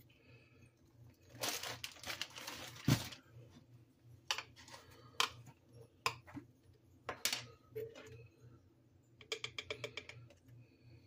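Spoon and glass jar handling over a mixing bowl: a short rustle ending in a knock, then scattered clicks of a spoon against jars and the bowl, and a quick run of about eight small taps near the end as the spoon works in a jar of minced garlic.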